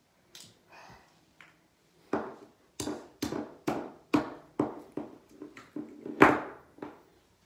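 A rapid run of about eleven sharp knocks, a little over two a second, each with a short ring. It starts about two seconds in, and the loudest knock comes near the end.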